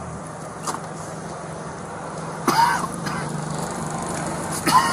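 Car engine idling steadily, with two short vocal sounds, a cough or a brief word, about two and a half seconds in and near the end.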